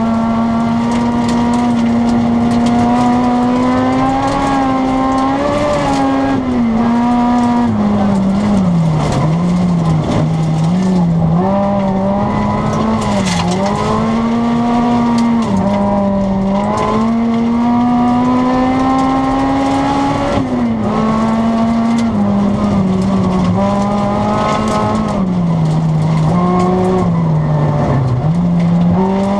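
Honda Civic Type R rally car's four-cylinder engine heard from inside the cabin, held at high revs, its pitch dropping and climbing again and again as the driver lifts, brakes and shifts through the bends, over steady road and tyre noise.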